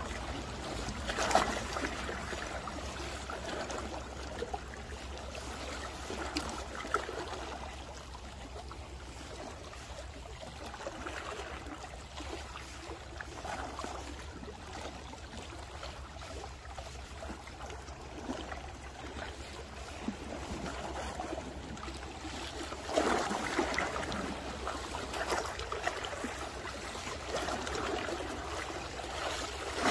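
Small waves lapping and splashing against the rocks of a seawall, in irregular swells that grow busier near the end.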